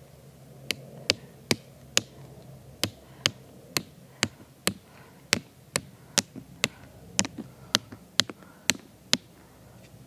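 A hand-held rock used as a hammer striking a tent peg about twenty times, roughly two blows a second, driving it into the ground.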